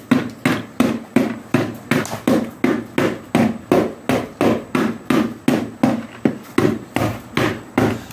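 A large kitchen knife repeatedly striking a green pot-shaped money box, a steady run of sharp knocks at about two and a half a second, as it is hammered to break it open.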